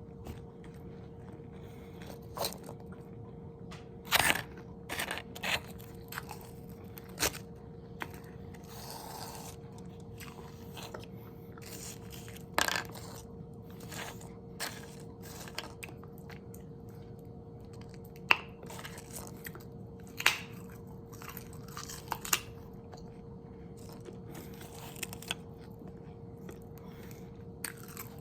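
Close-miked eating: sharp, irregular crunches of bites into food with chewing between them, a few seconds apart, over a faint steady hum.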